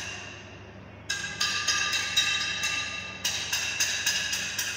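Background music of quick, evenly spaced struck notes in the manner of a wood block or mallet percussion, about four a second, in phrases that start about a second in and again past the three-second mark, over a faint steady low hum.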